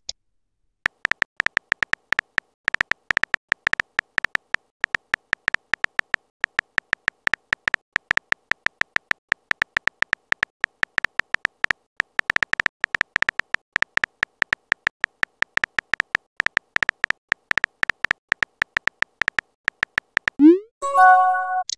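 Texting-app keyboard sound effect: rapid, irregular tapping clicks, each a short tick with a faint tone to it, as a message is typed letter by letter. About a second before the end, a message-sent sound plays: a quick rising swoop and then a short chime of a few steady notes.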